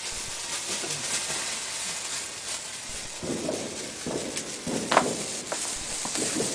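Hand-held sparkler fizzing with a steady hiss and small crackles, with a few dull bumps and one sharper crack in the second half.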